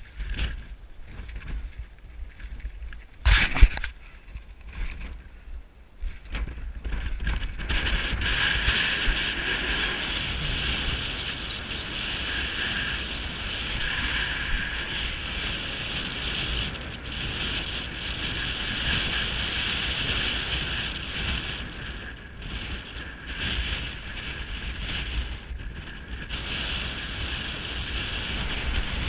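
Wind buffeting the microphone on an exposed height: a constant low rumble, a sharp knock about three seconds in, and a steady higher hiss from about eight seconds on.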